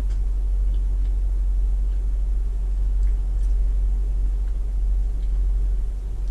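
Steady low hum of background room noise, with a few faint small clicks.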